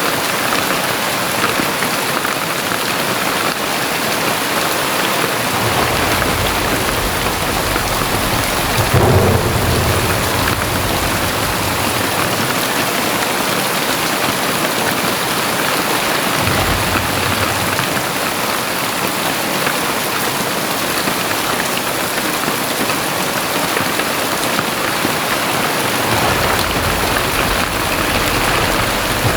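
Very heavy rain pouring steadily, with low rumbles of thunder rolling in about six seconds in, strongest around nine seconds, and building again near the end.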